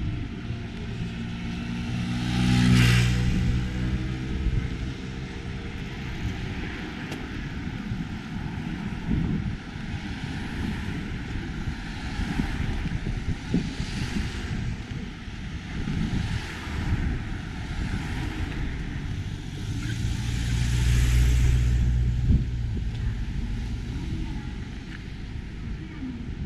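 Street traffic: vehicles passing one after another with rising and falling whooshes. A heavier engine hum swells about two to three seconds in and again around twenty seconds in.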